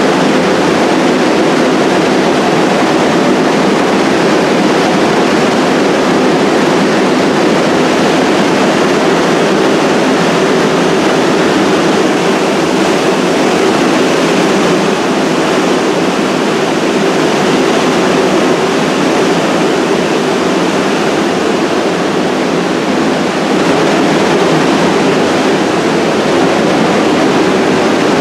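Stalled subway train standing at the platform, giving a steady loud rushing noise with a low hum.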